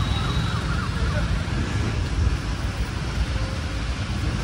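Wind buffeting the phone's microphone: a steady, gusty low rumble.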